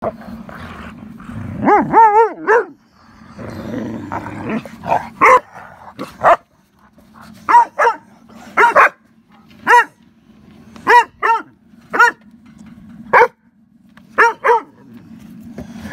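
A dog barking repeatedly in short, fairly high barks, about fifteen of them at irregular intervals, some with a quick rise and fall in pitch.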